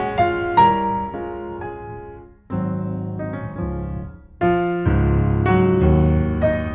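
Background piano music, notes struck one after another and fading, with a short pause about two and a half seconds in and fuller, heavier chords from a little past the middle.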